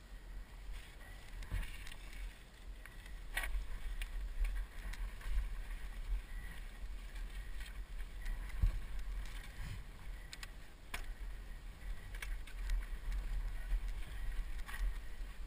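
Mountain bike ridden over a rough rocky dirt trail, heard from a helmet-mounted camera: a steady low rumble with scattered clicks and rattles from the bike jolting over stones.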